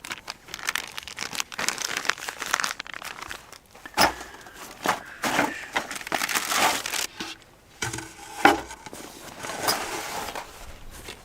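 Crinkly material being rustled and handled close by, with a few sharper knocks among the rustling, the loudest about four seconds in and again after eight seconds.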